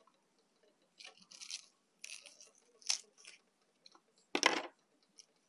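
Irregular short scraping and crunching noises, with a longer, louder rustling burst about four and a half seconds in.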